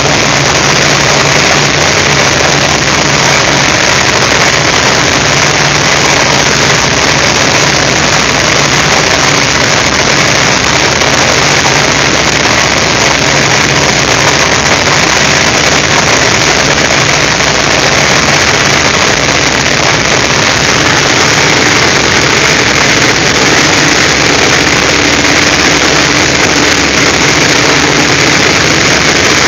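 Steady, loud drone of a North American T-28C Trojan's nine-cylinder Wright R-1820 radial engine and propeller, heard from inside the cockpit in flight on a landing approach.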